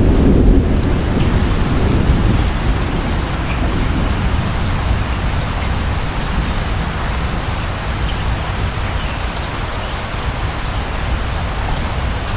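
Steady rain falling, with the low rumble of distant thunder dying away over the first couple of seconds.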